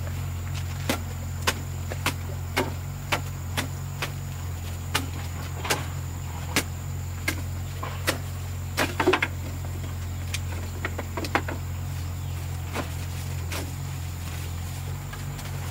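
Repeated short, sharp knocks, about one to two a second, over a steady low hum.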